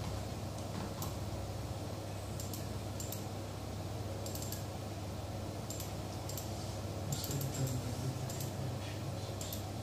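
Light, scattered clicks in small clusters over a steady low hum, most of them in the second half.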